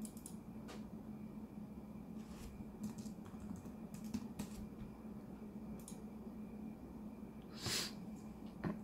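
Computer keyboard keys tapped a few at a time, scattered soft clicks as a PIN is typed in, over a faint steady hum. A short breath-like noise near the end.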